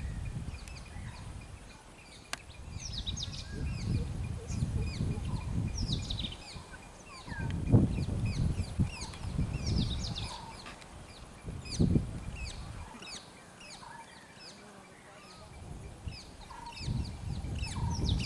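Birds calling over and over with quick, short downward chirps, over a faint steady high insect buzz. Irregular swells of low rumbling noise come and go, loudest about eight and twelve seconds in.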